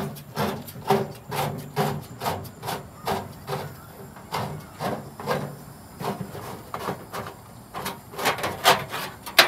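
Short noisy scuffing strokes repeating about twice a second, with one sharp, louder knock near the end.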